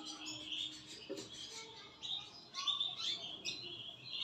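Caged canary chirping in several short bursts of high notes, some sliding upward in pitch.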